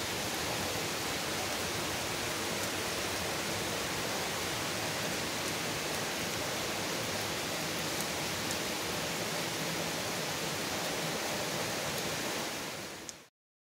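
Steady rain falling, an even hiss that fades out and cuts off just before the end.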